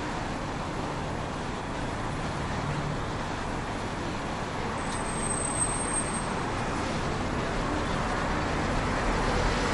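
Steady street traffic noise: cars running and idling in slow, congested traffic.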